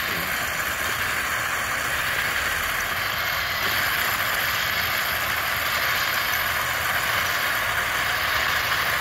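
Small RC tank's electric drive motors and metal tracks running as it drives along, a steady, unchanging running noise.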